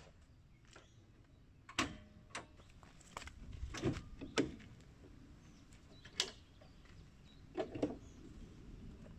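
Clicks and clunks of a Renault Master van's bonnet being unlatched and lifted open: a string of short sharp knocks, loudest about four seconds in, with a few more near the end as the bonnet goes up.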